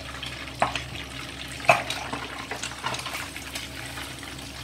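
Hot oil sizzling around a whole yellow croaker frying in a wok, with sharp knocks and clicks as a wooden spatula and a second turner go in to flip the fish. The loudest knock comes just under two seconds in, with a few lighter ones after.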